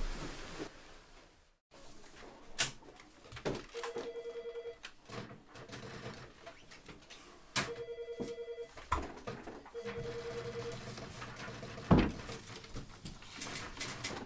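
Telephone ringing in three short trilling bursts, with a few sharp knocks in between; the loudest knock comes near the end.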